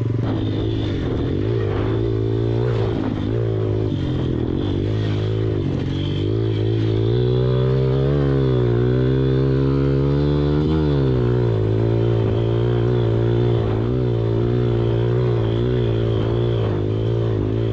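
110cc pit bike engine running under way, with a steady pitch that climbs as the throttle opens about seven seconds in and drops back a few seconds later.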